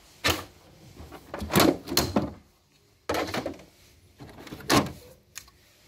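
Plastic covers being pried off the slotted cable ducts of an electrical control panel: several short plastic snaps and scrapes with quiet gaps between.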